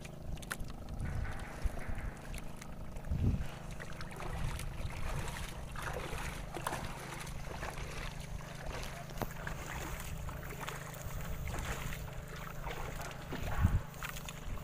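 Water slapping and splashing against the hull of a small boat as it drifts slowly, with a steady low hum underneath and a short knock near the end.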